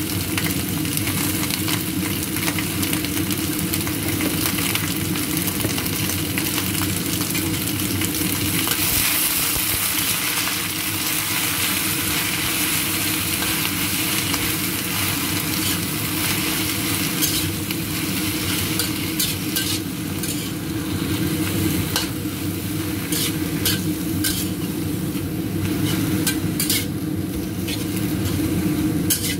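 Lettuce sizzling as it is stir-fried in a stainless steel wok. From a little past halfway, a metal spatula clicks and scrapes against the wok.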